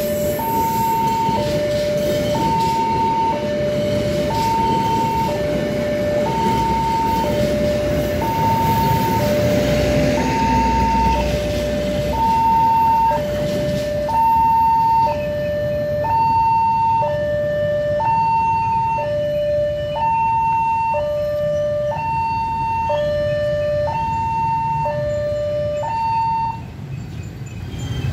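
Railway level-crossing warning alarm: an electronic two-tone signal switching steadily between a high and a low note about every half second, with a second, higher set of tones joining about halfway and the alarm stopping near the end. Over the first half a passenger train's wheels rumble by on the rails.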